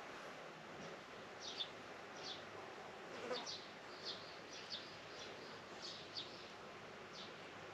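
Small birds chirping in short, irregular high notes over a steady faint outdoor hiss, with a brief rising sweep about three seconds in.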